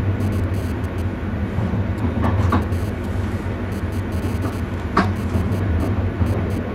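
Passenger train running, heard from the driver's cab: a steady low rumble with a few short sharp clicks or knocks from the wheels on the track, the loudest about five seconds in.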